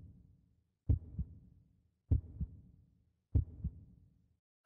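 Heartbeat: slow, low double thumps, lub-dub, repeating about every 1.2 seconds, with a short low ring after each. The beats stop shortly before the end.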